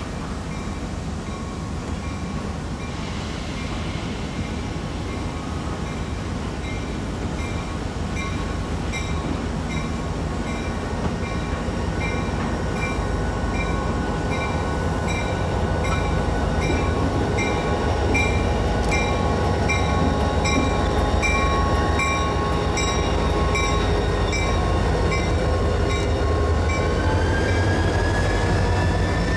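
Diesel freight locomotives drawing near and passing close by: their low engine rumble grows steadily louder, while a bell rings steadily about once a second. A rising metallic wheel squeal sets in near the end as the freight cars follow.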